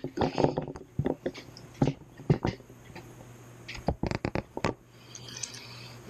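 Hands handling hardware: a string of about a dozen irregular sharp clicks and knocks with light scraping, loudest a little over two seconds in.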